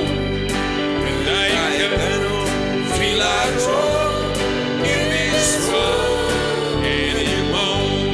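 Gospel band playing an instrumental passage of a worship song, with a steady drum beat, bass and a melodic lead line.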